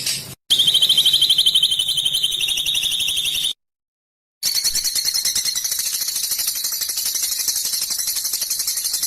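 A small songbird's harsh, buzzy rapid-fire trill, the dense rasping 'besetan kasar' call used in masteran tutor recordings. It comes as two edited stretches of fast, even pulses: one about three seconds long and a second starting about a second later, after a silent gap.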